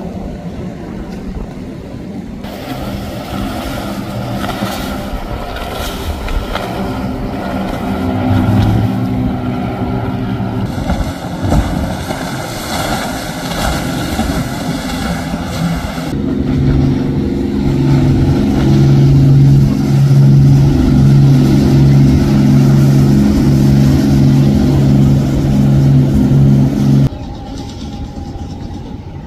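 Motorboat engines running across several short cut-together clips, the loudest a steady low drone in the second half that cuts off abruptly near the end.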